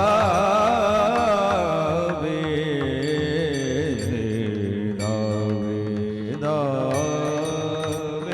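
Marathi Warkari kirtan music: a male voice sings long, wavering melismatic phrases without clear words, over steady held tones and mridang strokes.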